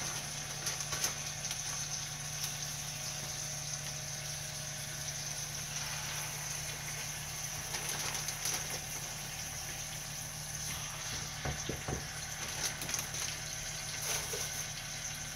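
Skin-on chicken thighs sizzling steadily in hot melted butter in a cast-iron skillet as they are seared, with a few light knocks in the second half.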